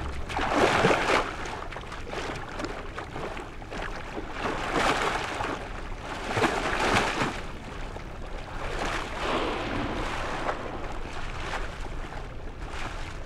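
Water rushing and sloshing near the sea surface, heard underwater around a swimming humpback whale calf. It comes in swells, loudest about a second in, then again around the middle and later on.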